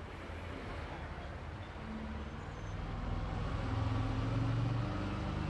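Low, steady hum of a motor vehicle's engine running, growing somewhat louder about three to four seconds in.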